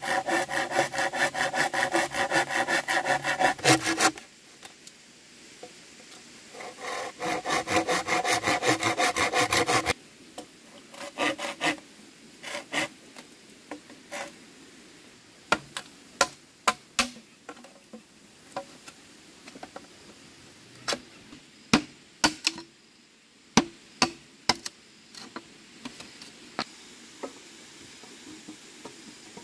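Rapid, even rasping strokes, about six a second, in two runs of a few seconds each, followed by scattered sharp knocks and taps.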